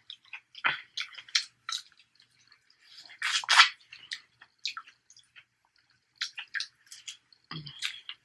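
Close-miked eating sounds: irregular wet chewing, lip smacks and small clicks, with a louder wet burst about three seconds in.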